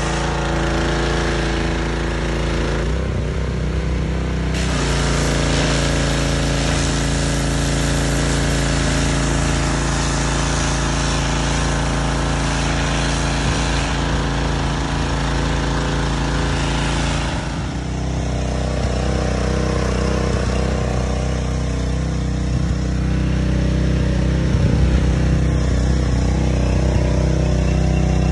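A small engine running steadily, with a loud hiss over it. The hiss dips briefly about three seconds in and dies down about two-thirds of the way through, while the engine keeps running.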